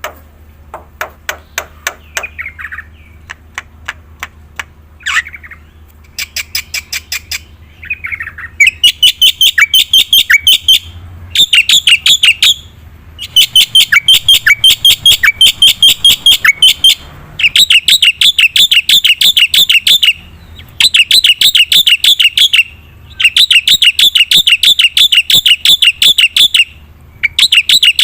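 Black-winged myna (jalak putih) singing: a string of sharp clicks for the first several seconds, then loud, rapid chattering notes in bursts of two to three seconds with short pauses between them.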